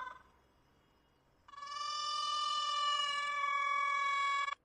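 A cat's single long, drawn-out meow, held at a steady pitch, starting about a second and a half in and cutting off sharply near the end.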